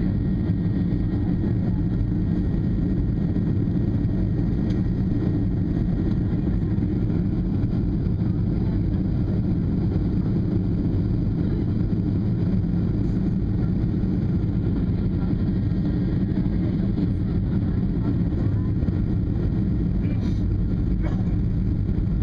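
Steady cabin noise of a passenger airliner on descent: a low, even drone of engines and rushing air with no change in level.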